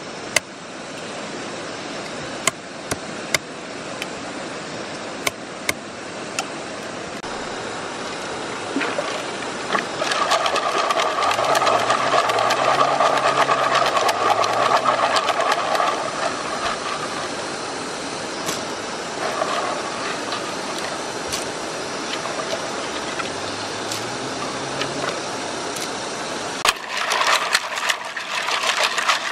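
Shallow stream running steadily over stones, with a few sharp clicks in the first few seconds. Water sloshes louder in the middle as a leaf is dipped into the stream. Near the end comes a dense clatter of snail shells being scrubbed by hand in a pot of water.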